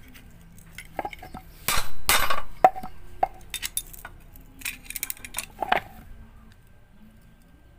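Steel bar being gripped and handled with locking pliers: a series of metal clinks and taps, with a louder scraping rush about two seconds in and another cluster of clinks around five seconds.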